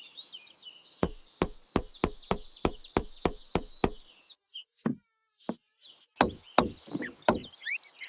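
A regular series of sharp knocks, about three a second, that stops after about three seconds, followed after a short pause by four more knocks. Faint high chirps are heard at the very start.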